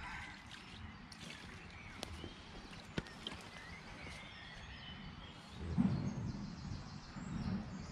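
Quiet outdoor ambience with faint bird chirps and a couple of sharp clicks, then a louder burst of low rustling and handling noise about six seconds in, as the large mirror carp is lifted off the unhooking mat.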